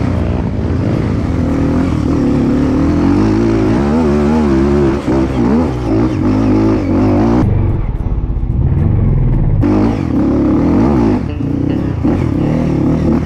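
Dirt bike engine revving up and down with the throttle as the bike rides a rough, muddy trail, heard from on the bike. About halfway through the throttle is shut for a couple of seconds, then opened again.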